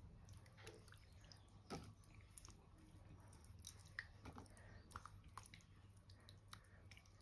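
Faint soft, wet squishing and light clicks of hands rubbing thick masala paste onto raw fish on a steel plate, over a low steady hum.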